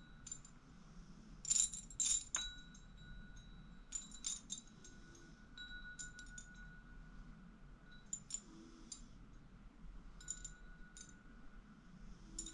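Wind chimes tinkling: irregular light metallic strikes, the loudest in a cluster about two seconds in, with some notes ringing on as clear held tones for several seconds.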